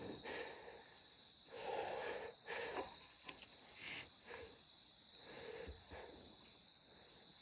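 Insects trilling in one steady, unbroken high drone, with a few faint rustles.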